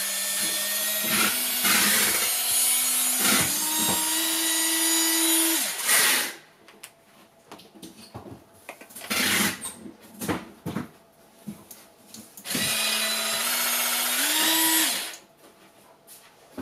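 Small electric motor of a cordless rotating cleaning brush running with a steady whir that steps up in pitch twice, then stops about six seconds in. Clicks and knocks follow as the brush heads are handled and swapped, then the motor runs again for a couple of seconds, stepping up in pitch once more before it stops.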